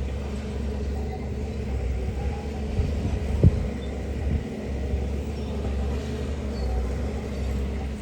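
Heavy diesel engine of construction machinery running steadily with a deep rumble. There is one sharp knock about three and a half seconds in.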